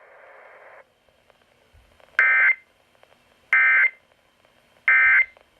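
Three short digital data bursts from a NOAA Weather Radio broadcast, each a buzzy electronic blip about a third of a second long, about a second and a half apart. They are the EAS/SAME end-of-message codes that close a severe thunderstorm warning. Faint broadcast hiss cuts off just before them.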